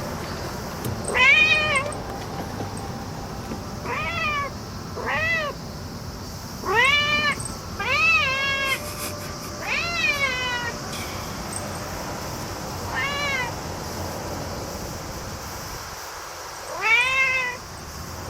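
Black domestic cat meowing repeatedly, about nine rising-then-falling meows spaced irregularly, some in quick pairs: the cat is fussing over a cicada it has spotted.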